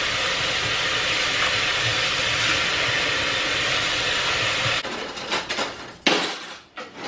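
Kitchen tap running in a steady stream into a pot of raw chicken drumsticks in a stainless steel sink as the chicken is washed, shut off about five seconds in. Then a drawer opening and cutlery clattering.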